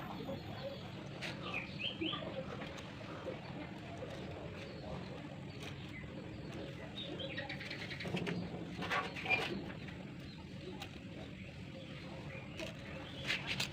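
Scattered bird chirps and calls over a steady low background noise.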